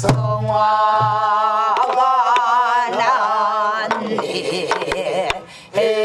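Woman singing a Korean southern folk song (Namdo minyo) in a wavering, ornamented style, marking the beat with sharp strokes of a stick on a buk barrel drum. Near the end the sound drops briefly, then a group of voices comes in on a long held note.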